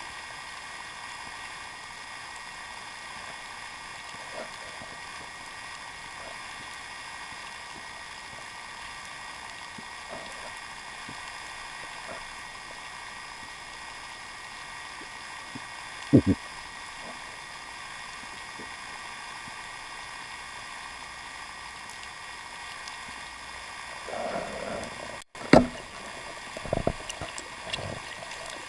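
Underwater sound picked up through the housing of a speargun-mounted camera during a freedive: a steady hiss with a few faint clicks and one sharp knock about halfway through. Near the end comes a run of louder knocks and clicks as the diver closes in on the rocky bottom.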